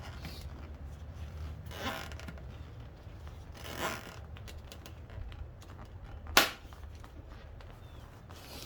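Plastic car-seat trim being handled: two brief scrapes, then a single sharp snap-like click about six seconds in, over a low steady hum.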